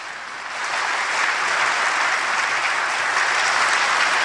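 Audience applauding, the clapping swelling about half a second in and then holding steady.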